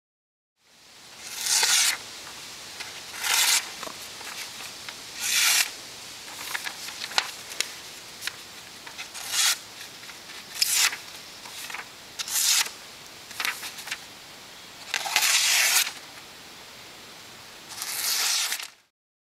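A 12-inch 440C stainless chef knife slicing through a sheet of paper: about eight hissing slicing strokes, each a second or less, a second or two apart, with fainter paper rustles between. It is a paper-slicing test of whether the edge is still sharp after heavy cutting.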